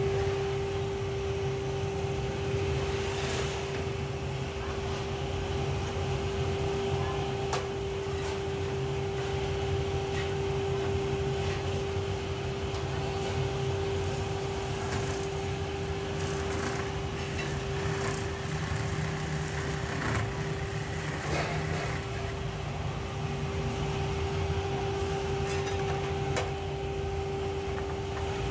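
Workshop machinery running steadily: an electric motor's constant hum over a low rumble, with occasional short metallic clicks and knocks.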